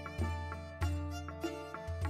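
Instrumental background music: pitched melody notes over recurring bass notes.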